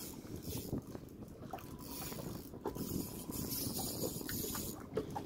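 Water lapping against a boat's hull and a landing net held in the water, with light wind on the microphone and a few small knocks.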